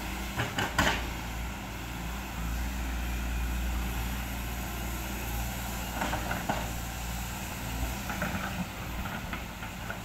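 SANY SY215C hydraulic excavator's diesel engine running steadily as it digs in wet mud, with a few short knocks about half a second in and again around six and eight seconds in.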